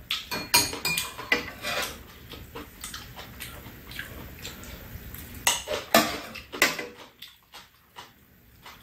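Spoons and chopsticks clinking and scraping against bowls and dishes during a meal: a run of separate sharp clinks, with a louder cluster about five and a half to seven seconds in.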